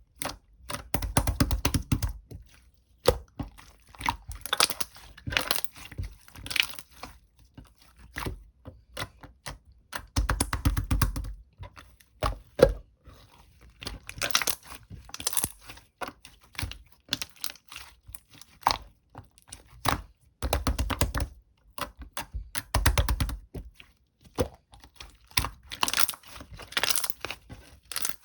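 Sherbet-textured slime being squished, pressed and stretched by hand, giving irregular bursts of crackling, crunching pops and clicks, with a few dull low thuds.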